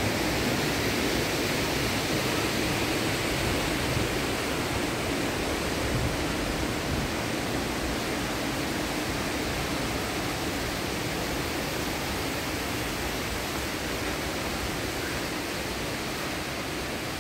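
Steady, even rushing noise with no distinct events, easing slightly toward the end.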